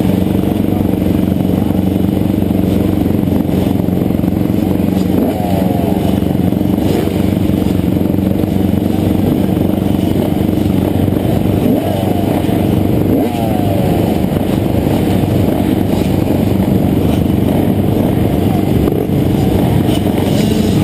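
A group of motocross dirt bikes idling together on the start line, a steady engine drone. Nearby bikes give short rising revs about five to seven seconds in and again around twelve to fourteen seconds.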